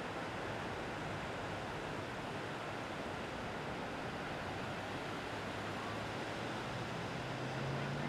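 Ocean surf washing steadily on a beach. A faint low engine hum comes in over the last few seconds, rising slightly in pitch.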